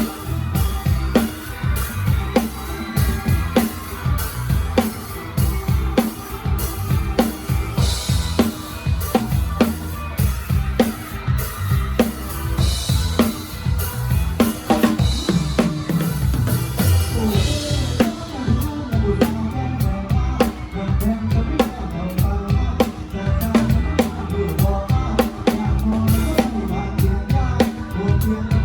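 Live drum kit played in a band concert: a steady groove of heavy kick drum, snare and rimshots, with cymbal crashes in the first two-thirds that drop away in the last third.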